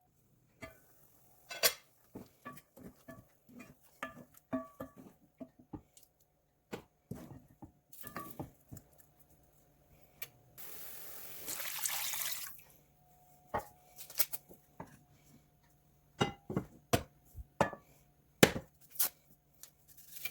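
Kitchen prep sounds: dishes and utensils clinking and knocking on and off, with a tap running for about two seconds midway.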